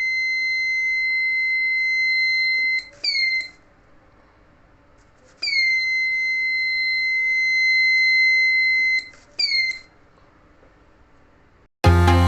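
Homemade door alarm's buzzer sounding a steady high tone: a long beep of about four seconds, then a short beep, and the same pattern again after a gap of about two seconds. Electronic music starts near the end.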